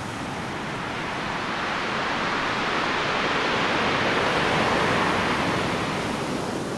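Sea surf: a steady rushing wash of waves that slowly swells to a peak and eases off again.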